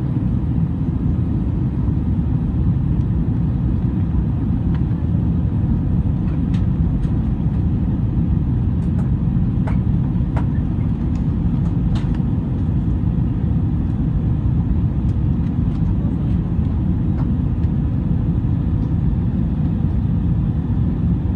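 Steady low rumble of a jet airliner's cabin in flight: engine and airflow noise heard from a window seat, with a few faint ticks about halfway through.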